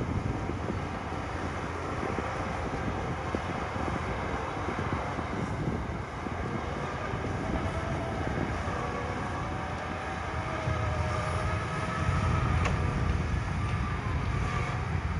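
Heavy diesel earthmoving machinery running: a steady engine rumble with a faint wavering whine over it, growing louder about eleven seconds in.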